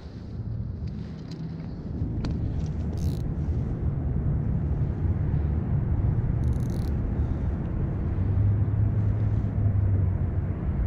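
Steady low rumble that grows louder about two seconds in, with two brief high hisses.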